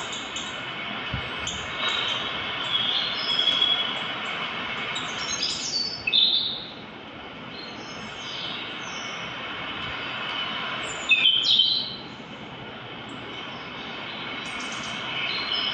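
Birds chirping and calling, played through a smartphone's small speaker, over a steady high-pitched tone; two louder bursts of calls come about six and eleven seconds in.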